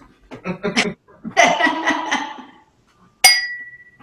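People laughing, first in short bursts and then in a fuller outburst. Near the end there is a sharp clink that leaves a brief ringing note.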